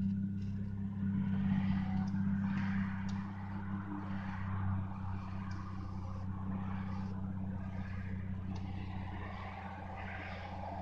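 Steady engine drone of a 1998 Mitsubishi Eclipse under way, heard from inside the cabin, with road and tyre noise.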